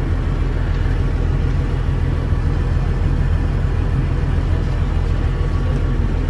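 Steady low rumble and hum inside a passenger train carriage, from the train's running machinery while it stands at a station platform.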